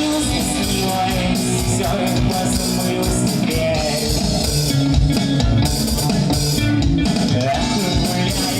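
Live rock band playing a song at full volume: guitars over a steady pounding drum kit.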